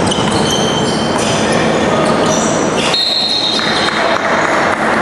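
Basketball game sounds in a gym: a ball bouncing and short high squeaks of sneakers on the court floor, over a steady noisy background from the hall.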